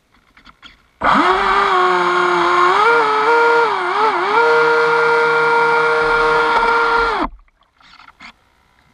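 Aquacraft 2030 brushless motor of an RC boat running under throttle, heard from on board: a steady high whine that starts suddenly about a second in, steps up slightly in pitch, wavers briefly, then cuts off shortly after seven seconds. A few faint ticks before and after.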